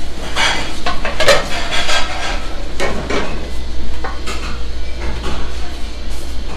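Metal pots, pans and utensils clattering: irregular knocks and scrapes over a steady low hum.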